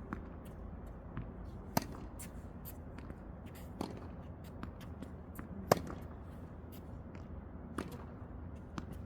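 Tennis rally: four sharp racket-on-ball hits about two seconds apart, loud and fainter strokes alternating as the ball goes back and forth, with fainter ticks between them.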